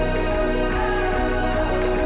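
Music: a slow song passage with sustained tones and a gliding melodic line, no words.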